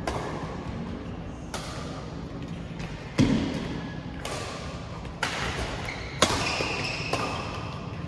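Badminton rackets striking the shuttlecock back and forth in a rally: about seven sharp smacks roughly a second apart, each with a short echo, the hardest about three seconds in.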